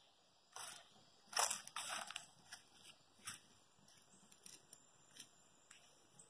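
Footsteps crunching through dry fallen leaves and mulch: a string of irregular crisp crunches, loudest about one and a half to two seconds in, then lighter ones.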